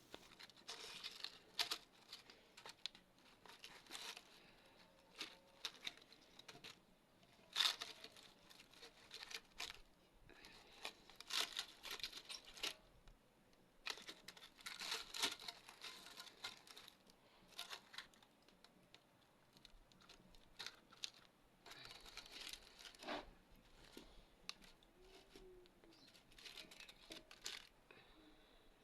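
Faint, irregular rustling and crinkling handling sounds, with sharp clicks now and then.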